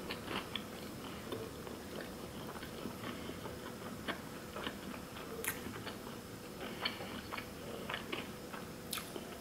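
Close-up chewing of a mouthful of sushi roll (nori-wrapped rice with vegetables): soft, irregular wet mouth clicks. A couple of sharper clicks come about halfway and near the end.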